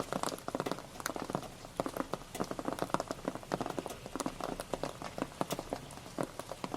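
Rain pattering: a dense, irregular stream of individual drops ticking on a surface, with no letup.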